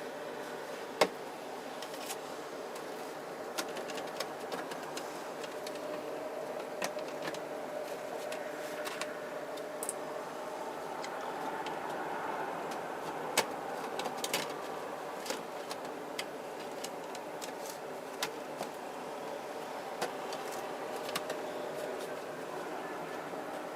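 Sharp clicks and taps of small plastic kit parts and tools being handled, scattered irregularly over a steady hum.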